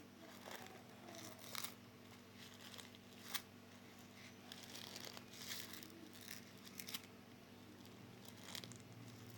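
Faint, irregular crackling and popping of homemade slime with rice mixed in, squeezed and kneaded by hand to make it crunch.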